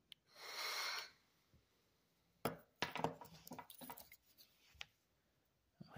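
A breathy rush of air lasting about a second as vapour is drawn from a handheld vape, then scattered faint clicks and light knocks.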